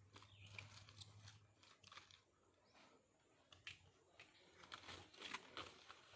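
Dry banana bracts rustling and crackling faintly as they are handled and laid in place by hand, with irregular crackles that grow a little denser near the end.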